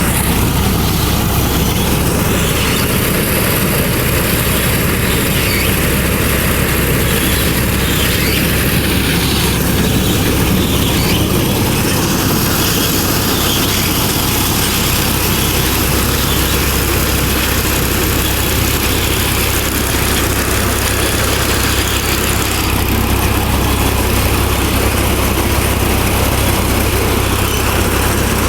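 Vikas 325 tractor-mounted mini combine harvester running steadily: the tractor engine's low drone under the continuous whir and rattle of the harvester's machinery.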